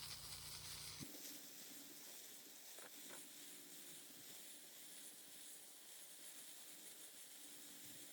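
Near silence: a faint steady hiss, with a low hum that cuts off about a second in.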